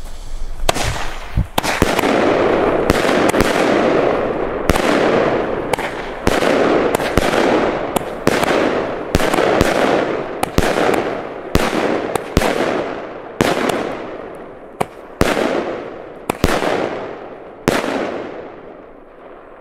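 Blackbox Vogelschreck firework battery firing shot after shot: about twenty sharp bangs, one every half second to second, each followed by a fading hiss. The shots thin out and stop near the end.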